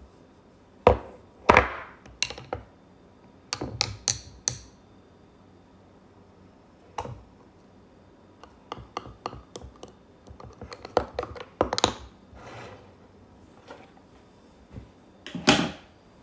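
Irregular knocks, taps and clatters of objects being handled and set down, some single and some in quick clusters.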